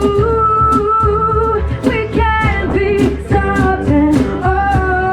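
Live pop song: a singer holding long sung notes over guitar and cajon beats.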